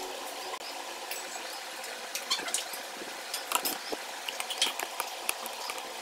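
A hand mixing thin gram-flour and rice-flour batter for boondi in a steel vessel: irregular small wet splashes and squelches as the fingers work through the liquid.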